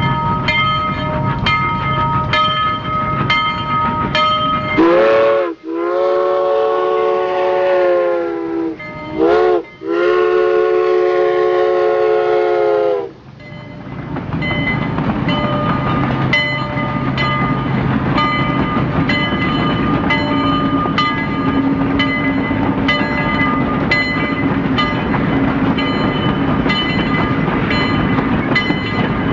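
Steam locomotive whistle blown four times, short, long, short, long, over the steady running of a train with regular clicking of wheels over rail joints.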